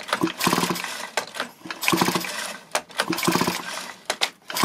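Stihl MS180 chainsaw's two-stroke engine being pulled over on its recoil starter about three times, roughly one pull every second and a half, without starting, with sharp clicks between the pulls. The cranking is a spark test of the ignition coil with its stop-switch wire disconnected.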